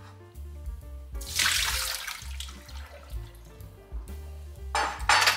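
Water poured out of a dish into a sink, a rush of splashing lasting about a second and a half, with a second brief rush near the end; background music plays throughout.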